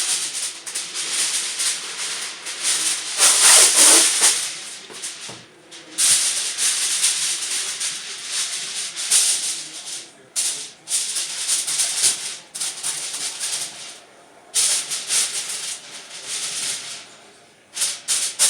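Aluminium foil crinkling and rustling in irregular bursts as it is pressed and folded around an oven rack, loudest a few seconds in.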